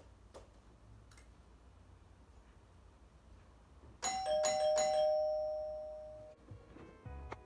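Doorbell chime about four seconds in: a quick high-then-low ding-dong that rings on and fades for about two seconds, then cuts off suddenly. Music starts near the end.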